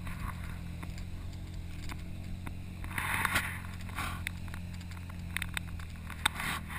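ATV engine running steadily at a low idle-like pace. There are a couple of brief rushing, crunching bursts about three and four seconds in, and scattered clicks near the end.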